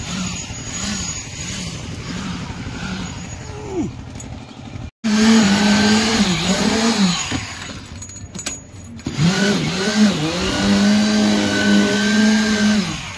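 Engine-driven concrete needle (poker) vibrator running, its pitch dipping and recovering as the poker works the wet concrete in the beam. It cuts out abruptly about five seconds in and comes back louder.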